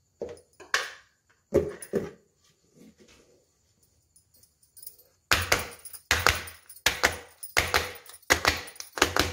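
Aluminium cake tin full of batter being knocked down on the countertop over and over, about one sharp knock every three-quarters of a second from about five seconds in, to settle the batter. Before that, a few scrapes and knocks of a spatula against the tin.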